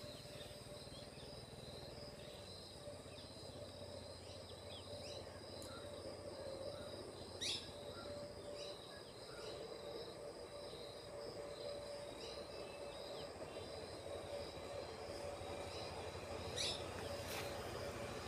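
Rural field ambience: insects trilling steadily in a high, even tone, with a few faint short chirps. Two brief sharp clicks come about seven and a half seconds in and near the end.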